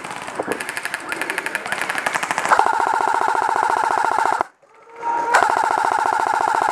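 Airsoft guns firing on full auto: fainter rapid fire at first, then long fast bursts close by, each carrying a steady mechanical whine, broken by a short break about four and a half seconds in.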